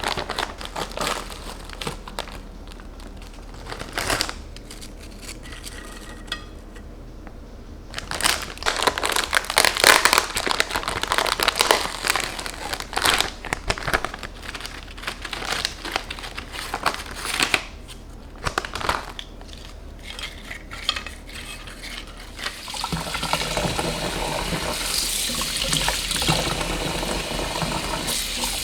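Rustling, crinkling and small knocks of kitchen work, then a kitchen tap turns on about three-quarters of the way through and runs steadily into the sink.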